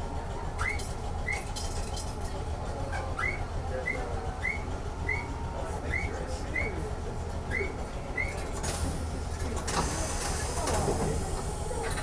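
Randen (Keifuku) tram running, a steady low hum with rail noise, overlaid for the first eight seconds by about ten short high rising chirps, one every second or less. Near the end the running noise grows louder as the tram slows toward Saiin station.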